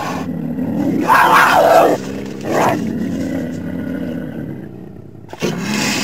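Cougar (mountain lion) vocalising: a harsh call about a second in, a shorter one soon after, then a lower sound that fades away, and another call starting near the end.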